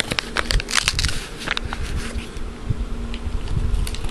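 Packaging being handled and worked at by hand: scattered sharp clicks and crackles over low bumps and rumble close to the microphone, with a thin low hum running underneath.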